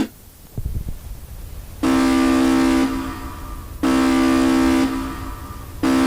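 Emergency alert attention tone: a loud, buzzy horn-like tone sounding for about a second every two seconds, three times, with a short low thud shortly after the start.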